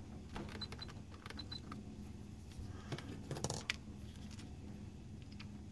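Light clicks and rattles of a handheld multimeter and its test leads being picked up and handled on a workbench mat, with a denser burst of clicking about three and a half seconds in. A few faint, short high beeps sound about half a second in and again about a second later.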